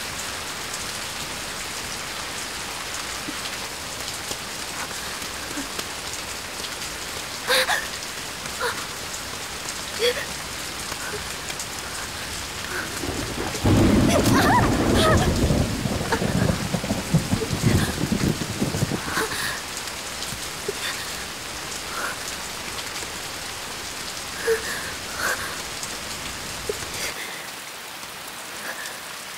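Heavy rain falling steadily, with a long roll of thunder starting about 13 seconds in and rumbling for some five seconds.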